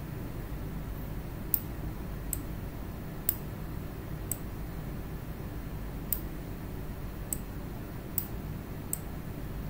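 Computer mouse clicking, about eight sharp clicks at irregular spacing over a steady low hum.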